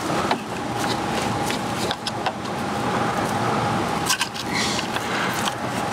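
Injector wiring connectors on a diesel engine being pulled and pried with a flat tool: scattered plastic clicks and scrapes over a steady mechanical drone.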